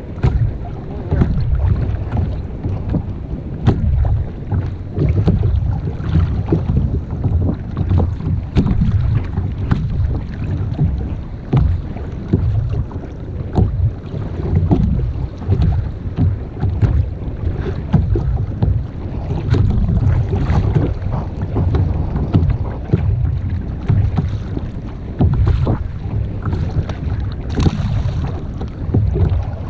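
Wind buffeting the microphone of a kayak-mounted camera at sea, a gusting low rumble, with scattered small knocks and splashes of water against the kayak's hull.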